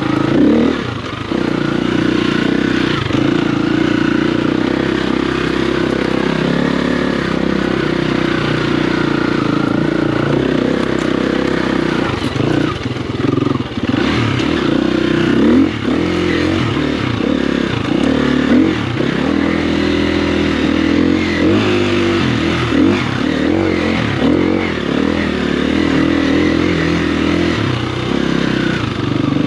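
Dirt bike engine revving, its pitch rising and falling over and over as the bike is ridden.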